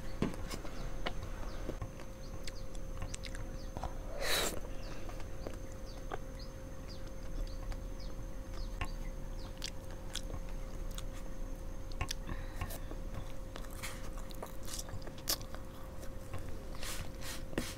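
Close-miked mouth sounds of someone eating soft marshmallow: steady chewing with many small wet clicks and smacks. There is one short louder smack about four seconds in, over a faint steady hum.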